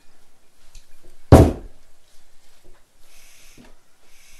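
A glass bottle set down hard on a table: one loud thud about a second and a half in. Soft breathy hisses follow twice near the end.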